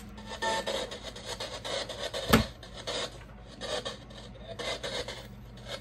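Spirit box sweeping through radio stations: choppy, rasping static in short spurts with brief fragments of sound caught between them, and one sharp click about two and a half seconds in.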